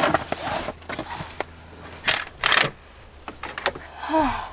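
Metal curtain grommets clinking and sliding on a tension rod, with curtain fabric rustling, in several short bursts. A brief falling tone near the end.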